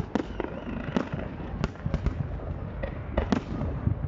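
Aerial fireworks bursting: an irregular series of about eight sharp bangs, some in quick pairs, over a constant background rumble of more distant bursts.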